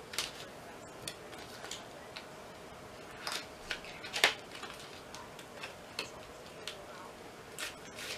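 Scissors snipping and hands handling a cardboard eyeshadow-palette box: a string of scattered sharp clicks and light rustles, the loudest click about four seconds in.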